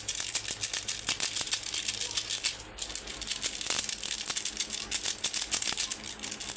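Metal spoon stirring Maggi noodles in a steel kadhai: a quick, steady run of clinks and scrapes against the pan, with a short break a little over halfway through.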